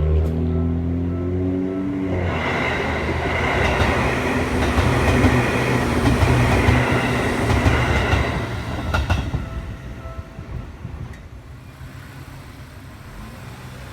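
Seibu Tamagawa Line electric train passing over a level crossing: its wheels rumble and clatter on the rails, growing loud a couple of seconds in, then fading away over the last few seconds as it moves off.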